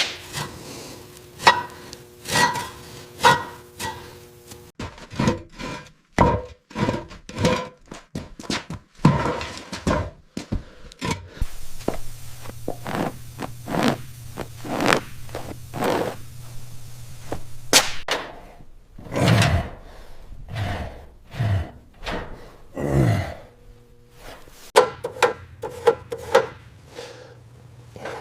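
A run of knocks, clunks and scrapes from hand tools and parts being handled. A low steady hum sits under some stretches, and the background changes abruptly several times.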